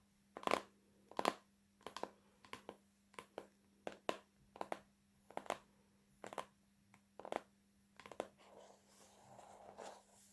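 Sharp, irregular taps and clicks from hands handling an oracle card deck's box, about one to two a second. Near the end they give way to a soft rubbing.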